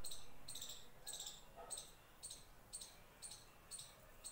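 Faint, high-pitched chirping repeating evenly about twice a second, each chirp made of a few quick pulses.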